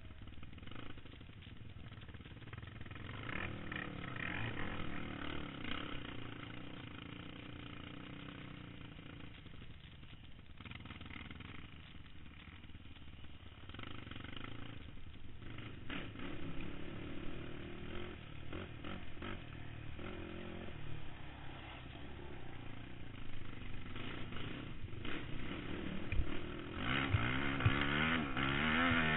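Sport ATV's single-cylinder four-stroke engine revving up and down as it is ridden hard over a dirt trail, with rattling knocks over rough ground. It revs loudest and climbs in pitch near the end.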